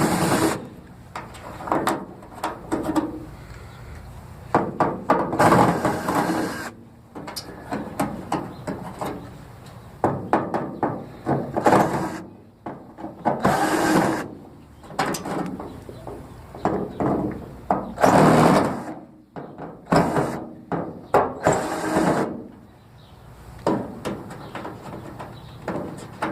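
An aluminium truck tool box being handled and dismantled by hand: repeated bursts of metal scraping and clattering, each about a second long, with short pauses between them.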